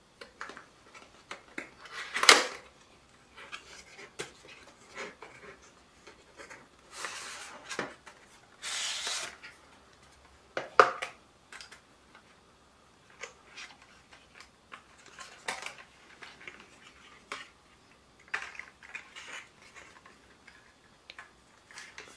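Hands handling a cardboard screen-protector box: the paper seal tab is torn open about two seconds in, then the box is opened and the inner kit slid out, with two rustling slides of about a second each, a sharp click, and scattered light taps and paper rustles.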